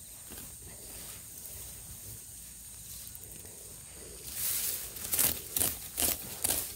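A hand sickle slashing through tall grass, starting about four seconds in and then in several quick swishing strokes about half a second apart.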